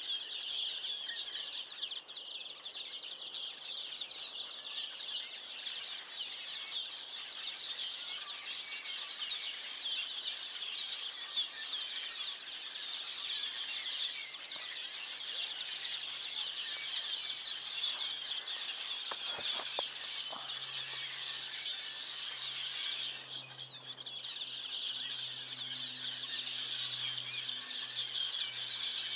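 A large flock of small birds chattering together in trees: a dense, continuous din of short, overlapping high chirps and squeaks, thinning briefly twice.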